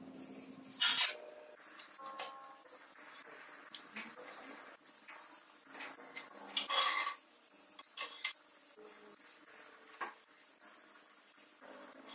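A steel plate set down on a steel workbench with a sharp metallic clank about a second in, then scattered light clinks and scrapes as a steel rule is moved about on the plate while lines are marked out on it.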